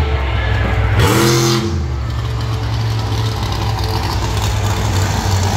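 Monster truck engine on hard throttle: the pitch climbs about a second in as it revs, then holds steady and loud as the truck drives through the dirt course.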